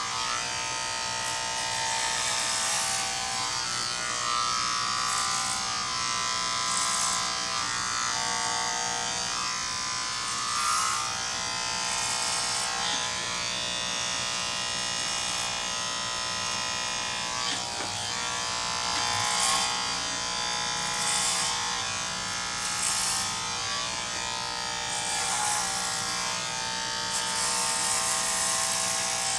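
Electric hair clippers buzzing steadily as a head is shaved, with brief stretches of higher hiss every few seconds as they pass over the scalp.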